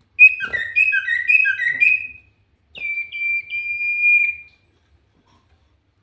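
Common iora (cipoh) singing: four quick phrases of falling whistled notes, then after a short pause one long, level drawn-out whistle.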